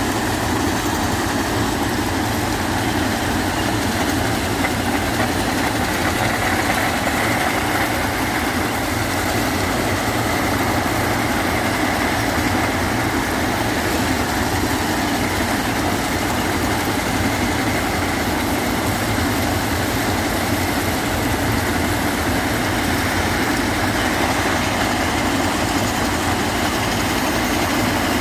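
Railway ballast cleaning machine at work, its engines and machinery running steadily and loudly without a break.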